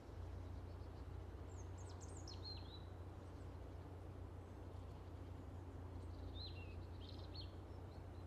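Quiet rural outdoor ambience: a steady low rumble, with small birds chirping in two short bouts of quick high notes, about two seconds in and again around six to seven seconds in.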